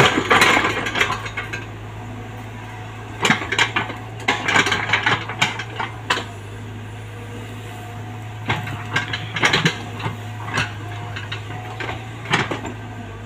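Komatsu PC75UU mini excavator's diesel engine running steadily, with bursts of metallic clanking and rattling from the bucket and arm linkage as it digs and scoops soil. The clanking comes in three spells: at the start, from about three to six seconds in, and again from about eight and a half seconds to near the end.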